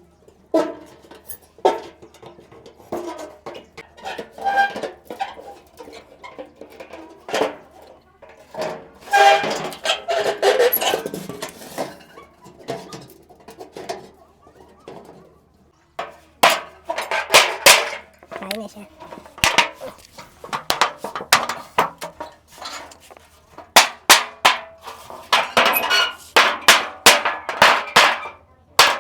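Sharp metallic knocks and clanks on a bent satellite dish as it is worked back into shape, scattered at first, then coming in quick runs through the second half.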